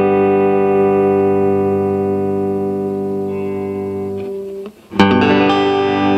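Solid-body electric guitar played clean through a Fender Acoustasonic DSP Junior amplifier: a chord rings out and slowly fades, is muted a little over four seconds in, and then a new chord is strummed and rings.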